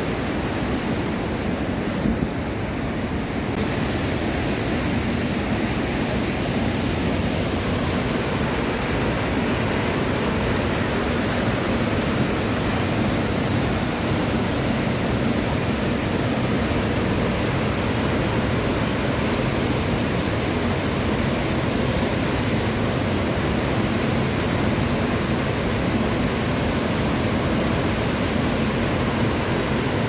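The steady, loud rush of water pouring over the cascades of Iguazu Falls. The sound brightens slightly a few seconds in.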